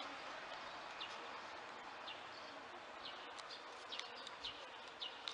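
A steady hiss with a scatter of short, high, falling chirps, coming more often in the second half.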